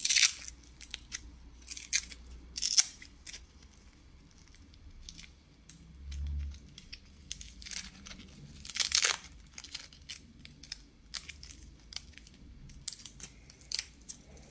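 Packaging being handled by hand: intermittent rustling, crinkling and scraping, in short irregular swishes with the sharpest ones at the start, about two to three seconds in, and about nine seconds in.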